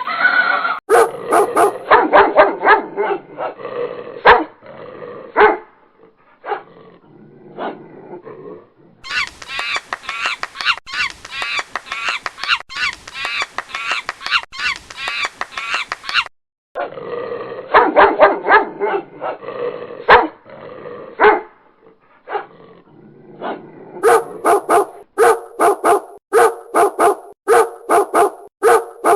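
Dogs barking and yipping, heard in several short recordings one after another, ending in a steady run of sharp barks.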